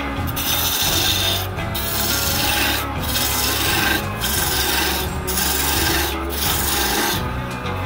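A gouge cutting a spinning cherry blank on a wood lathe: a steady shearing hiss as long shavings peel off, broken by brief gaps about once a second.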